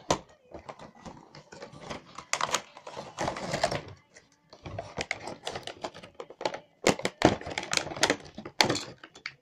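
Toy headphones taken out of their cardboard box and plastic wrapping by hand: a quick run of clicks, taps and crinkling plastic, densest about two to four seconds in and again from about seven to nine seconds.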